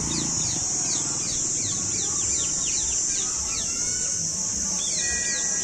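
Birds chirping over and over in short falling notes, about three a second, over a steady high-pitched buzz.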